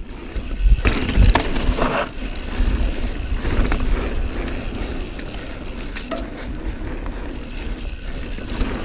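Mountain bike riding fast down a dirt trail: a steady rush of tyre and riding noise, with a few sharp knocks from bumps in the first couple of seconds.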